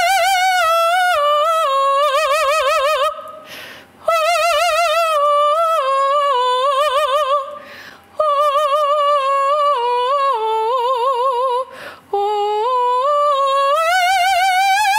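A woman singing a wordless operatic vocalise in a high voice with wide vibrato. It runs in four long phrases with short breaths between them. The first three drift downward in pitch, and the last climbs steadily higher.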